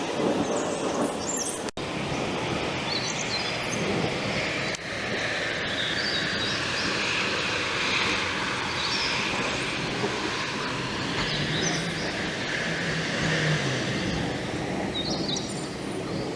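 Steady rushing outdoor noise with birds chirping now and then; the sound changes abruptly about two seconds in.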